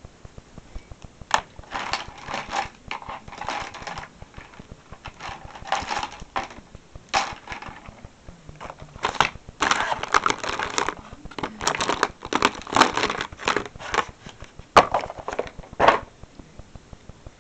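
Irregular bursts of rustling and scratching noise, with a few sharp clicks among them.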